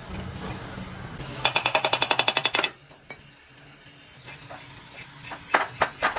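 A hiss of spraying air or liquid that starts about a second in, pulsing rapidly for just over a second before settling into a steadier hiss, with a few sharp metallic clinks near the end.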